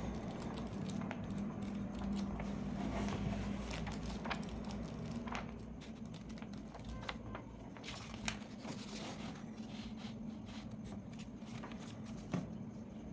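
Paper being handled: rustling and crinkling with scattered light ticks and taps, over a steady low hum.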